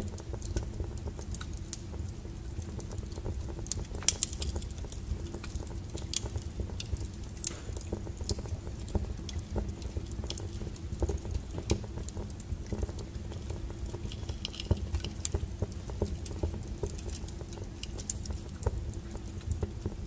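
Wood fire crackling in a fireplace: irregular sharp pops and snaps over a low, steady rumble.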